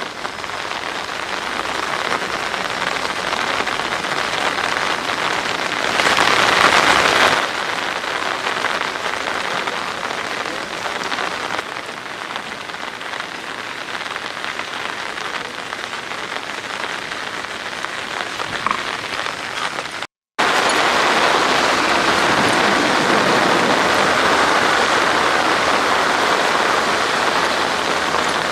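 Heavy rain pouring down steadily, an even hiss of falling water. It breaks off for a moment about twenty seconds in and comes back a little louder.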